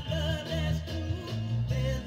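Soul record playing from a vinyl single: a band with singing over a strong, steady bass line.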